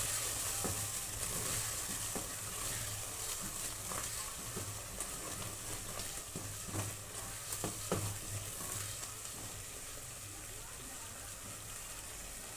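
Onion, tomato, ginger, garlic and spice base sizzling in a frying pan, with a few light clicks of the stirring spoon against the pan in the middle. The sizzle eases off slightly toward the end.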